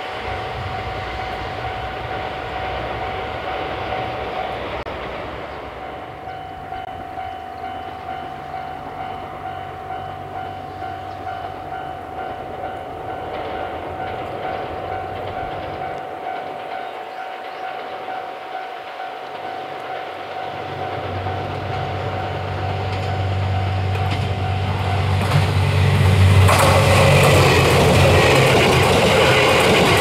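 Level crossing alarm ringing steadily as a train approaches. A low diesel rumble builds from about two-thirds in, then the Series 87 Twilight Express Mizukaze diesel-electric train passes close with loud wheel and rail noise for the last few seconds.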